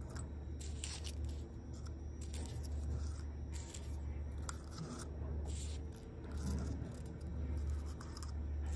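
Faint paper rustling and light taps as small folded paper cranes are slipped one by one into a small glass jar, over a steady low hum.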